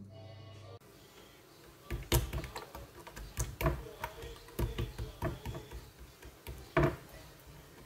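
Hands patting, pressing and slapping soft oiled dough flat on a wooden cutting board, making irregular soft thumps and sharper taps. A low steady hum cuts off about a second in.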